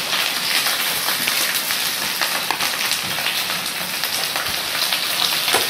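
Cut okra sizzling in very hot oil in two pans: a steady, dense crackling hiss just after the okra went into the oil.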